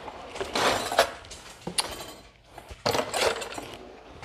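Kitchen dishes and cutlery clinking and clattering as they are handled, in two stretches, about half a second in and again about three seconds in.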